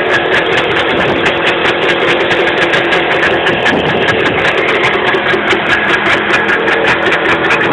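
Jawa two-stroke motorcycle engine running on its own at steady, fast revs. It is running away ('vraznos') and not settling back to idle.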